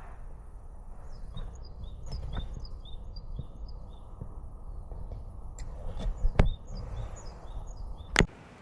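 Small birds chirping in quick, repeated short notes over a steady low rumbling background, with a few sharp knocks about six seconds in and a louder one near the end.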